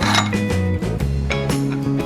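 Background music with a bass line and a steady beat of about two hits a second.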